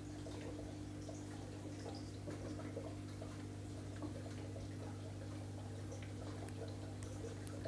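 Steady low hum of running aquarium equipment, with faint scattered ticks and drips of water.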